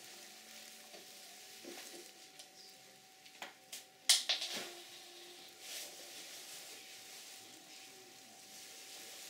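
Faint scratchy hiss with a few sharp clicks and knocks, the loudest cluster about four seconds in, from a paintbrush being worked on canvas and knocked against paint jars and the palette.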